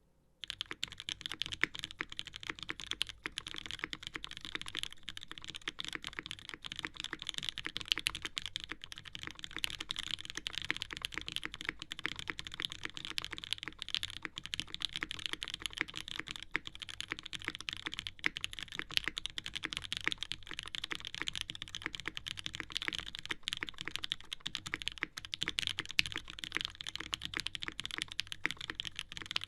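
Continuous fast typing on a custom mechanical keyboard: a Haus case with an aluminium plate, Krytox 205g0-lubed Gateron Ink Black linear switches, GMK ABS keycaps and Durock V1 stabilizers. Dense, steady keystroke clacks start about half a second in, with an occasional louder stroke.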